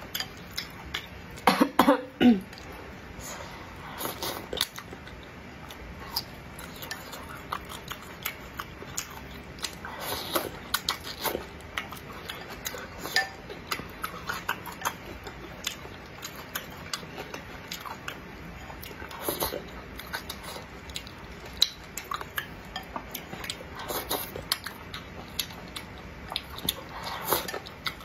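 Close-miked eating of spicy stir-fried noodles: slurping and chewing, with wooden chopsticks clicking against a ceramic bowl. A louder burst of sound comes about two seconds in.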